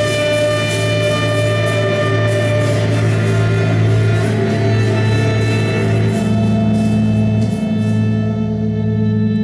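Live chamber ensemble music: violins and trumpet hold sustained notes over a steady low drone, with a fast, even ticking beat. The ticking stops near the end, and the trumpet drops out about the same time.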